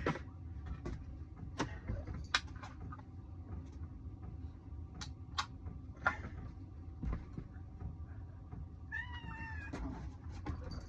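A cat meows once, about nine seconds in, amid scattered light clicks and knocks.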